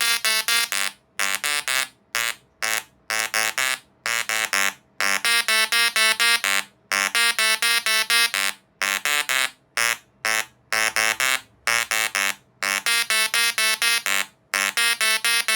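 Tesla coil sparks buzzing out a run of notes: a loud, harsh electric buzz that changes pitch from note to note, with short breaks between notes.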